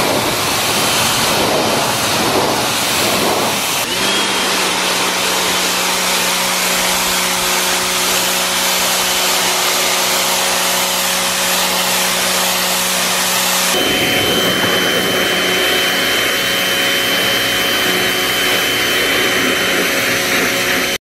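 Electric pressure washer running: a steady motor hum under the loud hiss of the high-pressure spray striking wood decking and concrete. The sound changes abruptly twice, about four seconds in and again near fourteen seconds.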